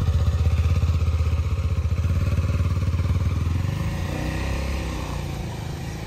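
KTM 390 Adventure motorcycle's single-cylinder engine running as the bike pulls away. Its note shifts about four seconds in, and the sound eases off slightly toward the end.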